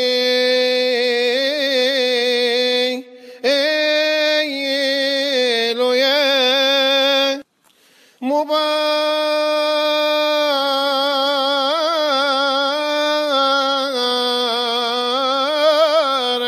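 A Coptic deacon's solo chant in Arabic: one male voice drawing out a long wordless melisma, held notes with wavering ornaments, in three breaths, with pauses about three seconds in and again near halfway.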